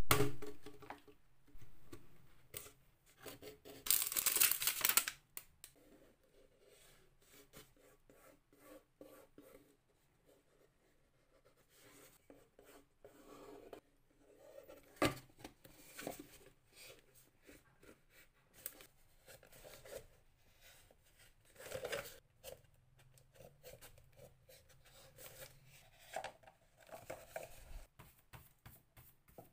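Hands working scrap craft materials: irregular clicks, taps and rustles, with a louder scraping or tearing burst lasting about a second, about four seconds in.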